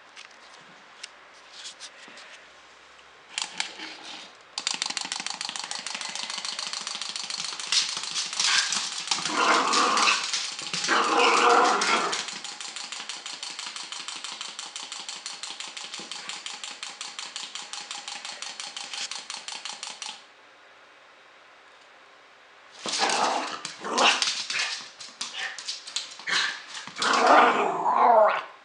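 A small self-moving toy ball whirring with a fast, even rattle for about fifteen seconds, then stopping abruptly. A puppy barks and growls at it in short bursts partway through, and again in a run of barks and growls near the end.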